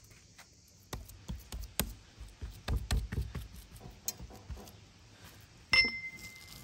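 Hands patting and slapping a mound of minced meat on a wooden chopping board: a run of irregular soft knocks and thumps. Near the end comes one sharp metallic clink with a short high ring, most likely from the cleaver blade.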